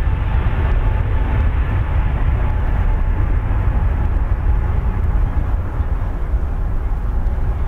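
Boeing 737-8 MAX's CFM LEAP-1B turbofan engines running at high power as the jet rolls down the runway. A loud, steady rumble with a faint fan whine, its higher part fading somewhat after a few seconds as the aircraft draws away.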